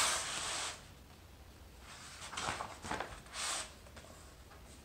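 A page of a hardcover picture book turned over: one loud paper swish at the start, then softer rustling of the paper a couple of seconds later as it is smoothed flat.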